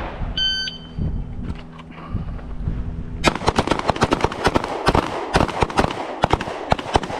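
A shot timer beeps once, briefly, to start the drill. About three seconds later several handguns open fire on the line, firing rapid shots that overlap one another and keep going.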